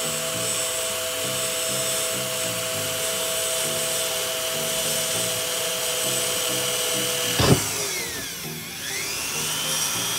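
Handheld drill running steadily as it bores a hole through a Toyota Tacoma's fender. About seven and a half seconds in there is a sharp knock, the drill winds down, then speeds up again near the end.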